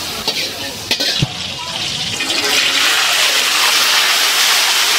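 A few metal clinks and scrapes of a wok being emptied, then, about two seconds in, food hits hot oil in a wok and a steady frying sizzle builds up and stays loud.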